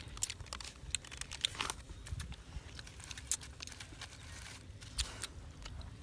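A small foil packet crinkling and crackling as it is handled and torn open by hand, in irregular short crackles.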